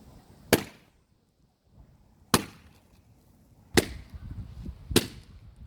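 Balloons bursting with sharp bangs, four times about a second or more apart.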